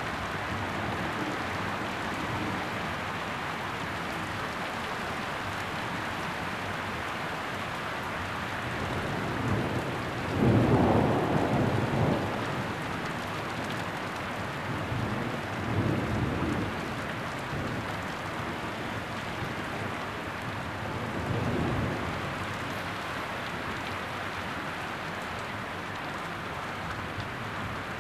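Heavy rain falling steadily on garden foliage and paving, with thunder rumbling. The loudest rumble comes about ten seconds in and lasts around two seconds, and two weaker rumbles follow later.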